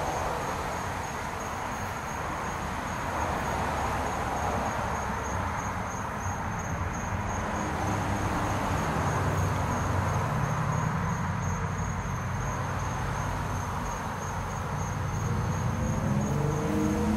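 Crickets trilling steadily in a continuous high pulsed tone over a low rumble. Near the end, a vehicle's engine note begins to rise as it approaches.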